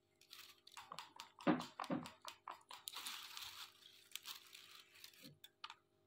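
Rose-ringed parakeet making quiet clicking and crunching sounds, with two brief soft chirps about a second and a half and two seconds in and a rustle around three seconds.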